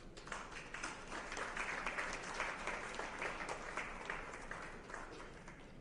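Audience applauding: many hands clapping together, swelling over the first couple of seconds and tapering off near the end.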